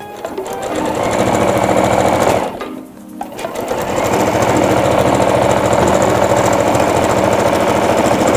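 Electric household sewing machine stitching a seam at speed with a regular straight stitch. It starts up, stops briefly about two and a half seconds in, then runs on steadily.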